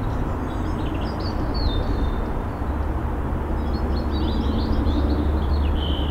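Steady low rumble of a helicopter, muffled by noise reduction, with small birds chirping over it in short high calls.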